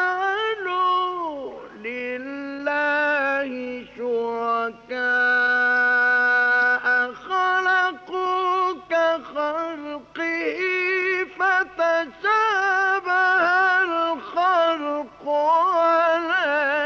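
A solo male Qur'an reciter's voice chanting in the melodic mujawwad style, drawing out long ornamented phrases in a high register with brief breath breaks, including one held, steady note about two seconds long a third of the way in. A faint steady hum lies underneath.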